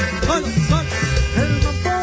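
Live norteño-sax band music: a melody with sliding notes over a steady bass line and a regular drum beat.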